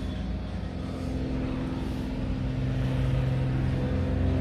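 A car engine running steadily at low speed, a low hum that grows a little louder about halfway through.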